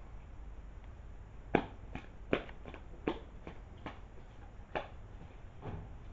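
Two dogs play-wrestling on a concrete floor: a run of sharp, irregular clicks and snaps, about ten over some four seconds, the loudest in the first half.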